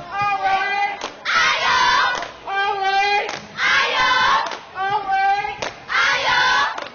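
A group of children chanting loudly in unison, phrase by phrase, with a sharp clap or stomp marking the beat about once a second.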